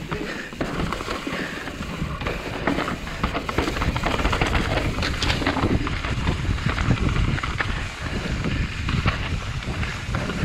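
Kona Process 153 mountain bike riding fast down a dirt trail: wind buffeting the microphone, tyres rolling over dirt, and the chain and frame clattering over bumps. It gets louder about four seconds in.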